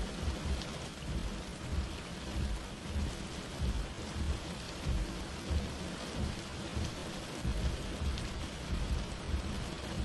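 Heavy rain falling steadily, with a deep, uneven rumble underneath.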